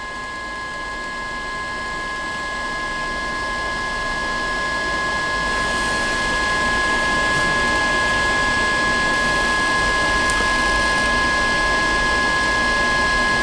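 A steady whirring, engine-like noise with a few high steady whine tones, growing gradually louder.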